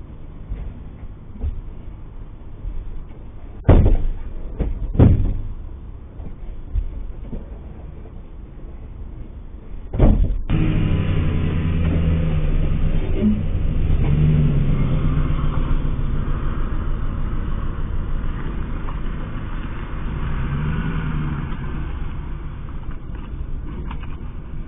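Two loud thumps like doors slamming, then another just after ten seconds as a cargo van's engine starts. The engine then runs and pulls away, its pitch rising and falling.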